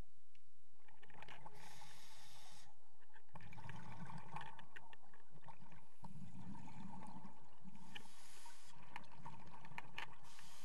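A scuba diver breathing through a regulator underwater: a hiss of about a second on each inhalation, three times, with a longer bubbling rush of exhaled air between them.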